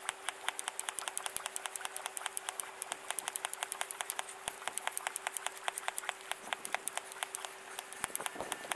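A 4500 PSI hand pump filling a PCP air rifle, its strokes in sped-up playback, giving a rapid, even run of sharp clicks, about six a second, over a steady faint hum.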